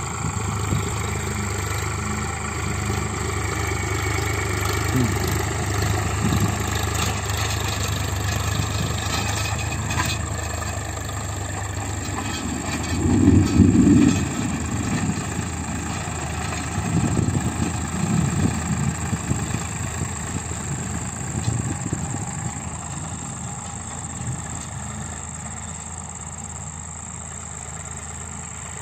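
Preet 4549 tractor's diesel engine running steadily while pulling a spring-tine cultivator, with a louder burst about halfway through and the sound fading toward the end.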